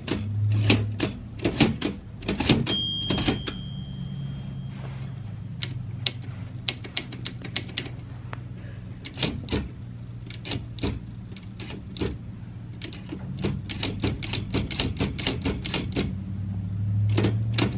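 Olympia Deluxe manual typewriter being typed on: irregular runs of sharp key and typebar clacks, with one ring of the margin bell about three seconds in. The keys are stiffer than normal and the typebars don't always strike the paper, despite fresh oil.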